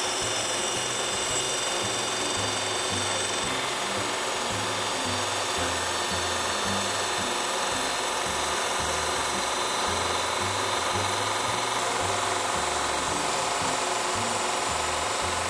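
Gemini Revolution XT ring saw's sintered diamond ring blade grinding steadily through a stone tile as the tile is fed slowly with light pressure, a constant gritty cutting noise with no letup.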